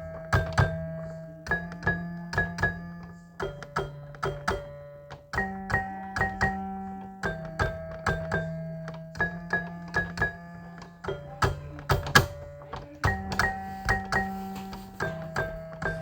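Instrumental music: held keyboard chords over a low bass note, the chord changing about every two seconds, with sharp clicking and knocking percussion throughout.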